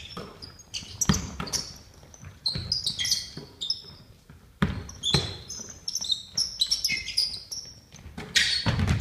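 Basketball bouncing at irregular intervals on a wooden gym floor, with sneakers squeaking in short high chirps as players cut and stop, all echoing in a large hall.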